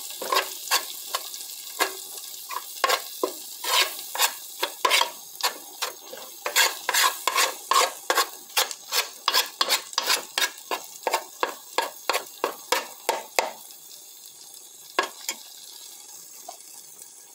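A spoon scraping round a metal pot, stirring corn starch into sizzling melted margarine: rhythmic strokes, two or three a second, over a steady light sizzle. The strokes stop about 13 seconds in, leaving the sizzle with one more scrape a little later.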